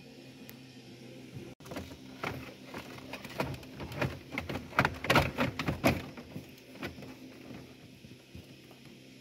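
Plastic dashboard trim and wiring handled by hand under a car's dashboard: an irregular run of clicks, knocks and rustling, busiest and loudest a little past the middle, then settling.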